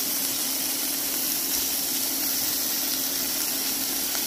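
Diced bacon lardons and red onions sizzling in hot oil in a frying pan: a steady hiss of frying.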